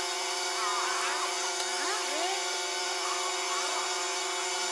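A steady mechanical hum with a constant hiss, with faint voices in the background.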